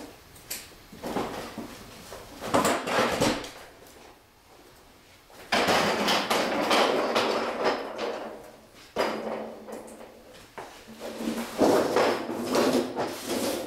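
A mechanic's creeper rolling and clattering across a concrete floor, in bouts of rattling and scraping with a steady rolling rumble in the longer stretches.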